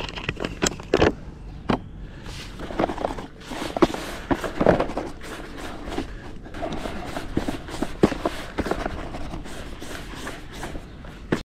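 Hands mixing damp fishing groundbait in a bowl after sparkling water has been added: many irregular soft crunches and rustles, stopping abruptly at the very end.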